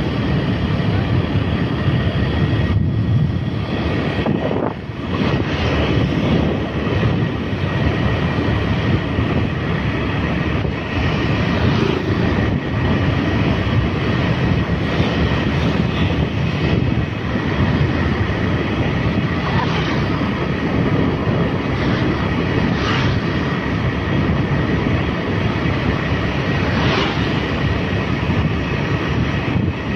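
Steady rumble of a motorbike being ridden along a street: its engine running at an even pace, mixed with wind and road noise. A faint steady high tone runs under it.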